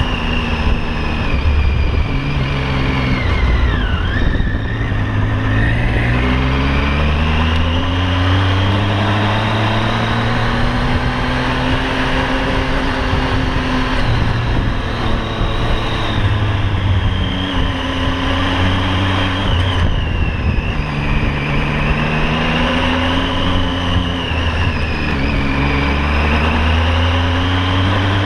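Triumph Tiger 800 XC's three-cylinder engine running while riding, its revs climbing and falling several times.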